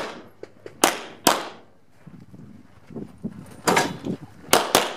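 Glock 17 9mm pistol shots in a practical-shooting stage: a quick pair about a second in, then a pause, then three more shots near the end, each a sharp crack with a short echo.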